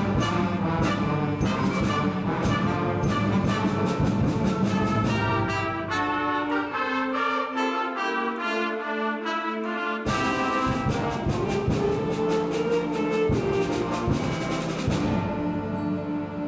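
High school concert band playing, brass to the fore. About six seconds in, the low instruments drop out for a lighter passage of higher held notes. The full band comes back in with a sharp accent about ten seconds in.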